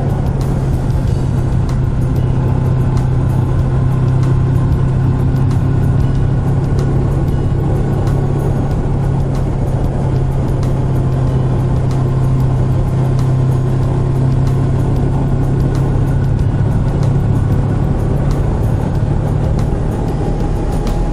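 Suzuki GSX250R's 248 cc parallel-twin engine running at a steady cruise, its low note holding even, over road noise.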